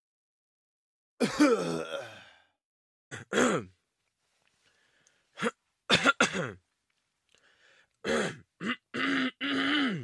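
A person clearing their throat again and again: about a dozen separate short throat-clearing sounds, some falling in pitch. There is one longer one about a second in, and a quick run of them near the end.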